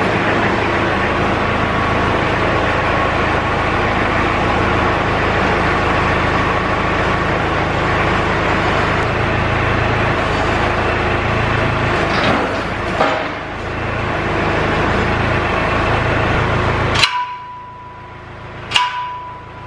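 Tractor engine running steadily while its three-point quick hitch lifts and latches onto a pallet-fork frame, with metal clanks about 12 to 13 seconds in. The engine sound cuts off suddenly with a sharp clank near the end, and a second clank follows a couple of seconds later.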